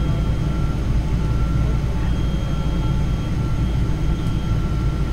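Cabin noise inside a Boeing 777-200 taxiing slowly near the gate: a steady low rumble with a few thin, steady whines above it.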